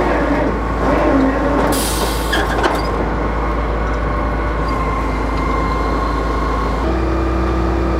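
Drill rig's engine and hydraulics running steadily while drill pipe is tripped out of the well, with a short hiss about two seconds in. The machine's note changes near the end.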